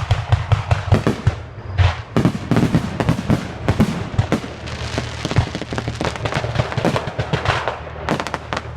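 Aerial fireworks going off in a rapid barrage: many sharp bangs and crackling bursts a second, thinning to a few separate bangs near the end.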